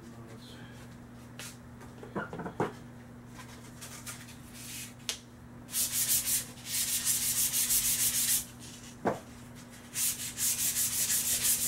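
Sandpaper rubbed briskly back and forth along the metal barrel of a Crosman 760 Powermaster air rifle, taking off rust to shine the steel. It comes as rapid scratchy strokes in two spells, one starting about six seconds in and another near the end, after a few soft clicks and rustles as the paper is handled.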